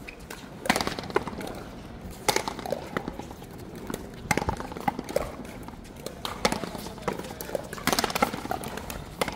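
A rally of paleta frontón: sharp knocks of the ball struck by wooden paddles and rebounding off the frontón wall, about one every second or two.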